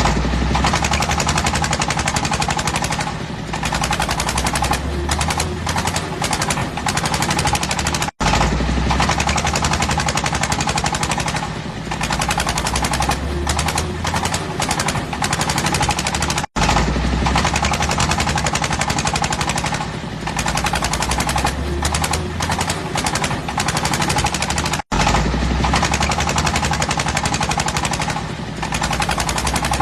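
Fishing boat's diesel engine running, a loud, rapid chugging exhaust. It drops out very briefly three times, about every eight seconds.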